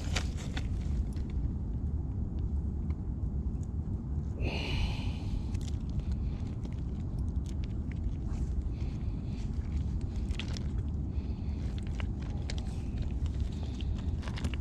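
Loose stones clicking and crunching as a person shifts on a rocky shore and handles a caught fish, over a steady low rumble. A brief high-pitched squeak comes about four and a half seconds in.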